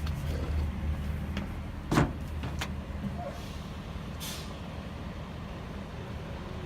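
Diesel engine idling steadily, from the truck's 6.7 Power Stroke V8. A sharp knock about two seconds in is the loudest sound, followed by a lighter click and a brief hiss.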